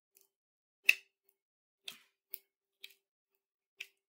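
A handful of sharp, irregularly spaced metallic clicks, the loudest about a second in, from the hand chuck gripping the intramedullary pin as it is twisted and worked through the dog's tibia.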